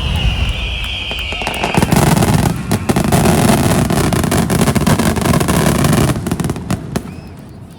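Aerial fireworks going off in a rapid barrage: deep booms with dense crackling, dying away near the end. A high whistling tone is heard during the first two seconds.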